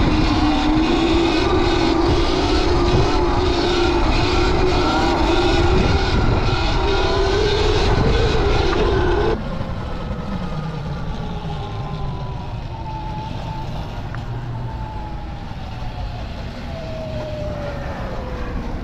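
Sur-Ron electric dirt bike being ridden: its electric motor's whine rises slowly over steady wind and road rumble. About nine seconds in the sound cuts abruptly to a quieter stretch, where a higher whine falls steadily in pitch as the bike slows.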